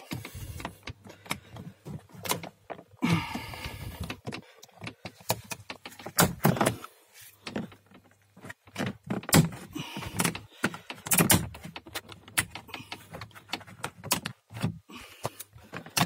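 Plastic door-handle trim with the window-switch panel on a Skoda Octavia Tour's driver door being pried up by hand and popping out of its clips: irregular clicks and knocks with a few short scraping rustles.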